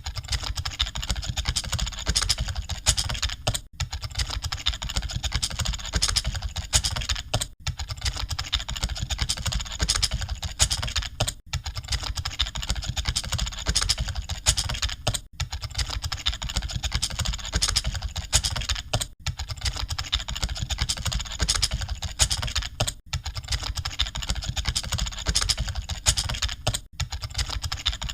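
Computer keyboards being typed on fast and without pause, a dense clatter of key clicks, broken by a brief lull about every four seconds.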